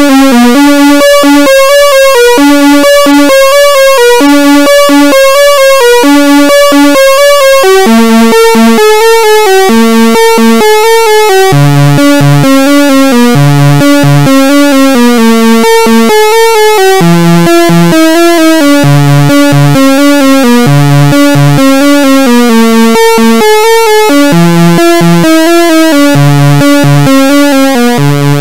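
Behringer Crave analog synthesizer playing a looping step-sequenced pattern: a fast run of short notes over a bass line whose pitch shifts every couple of seconds.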